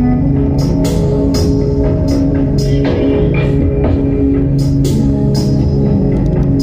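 Instrumental background music: sustained guitar-led melody over a steady drum beat.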